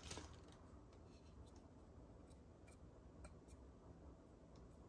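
Near silence, with a few faint, scattered clicks from a plastic 120 mm PC case fan and its cable being handled.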